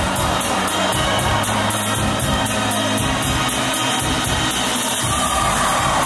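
Background music with a steady beat and singing.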